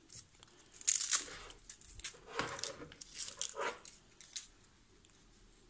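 Rustling and scraping as a laptop power adapter's cord is uncoiled by hand. There is a short, louder rip about a second in, and the handling stops after about four seconds.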